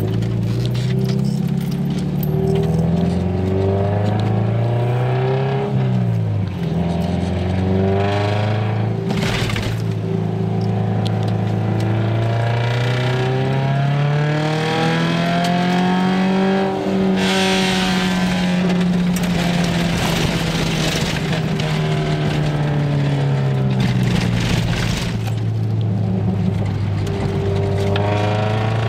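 A small car's four-cylinder engine heard from inside the cabin, revving up and down as it is driven hard on a dirt road, its pitch rising and falling with gear changes and a short drop about six seconds in. Brief bursts of noise come through a few times along the way.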